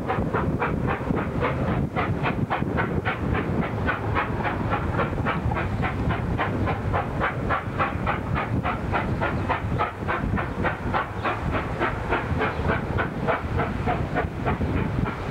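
Steam locomotive 3801, a NSWGR C38 class Pacific, working a train with a rapid, even exhaust beat of about four chuffs a second over a steady rumble.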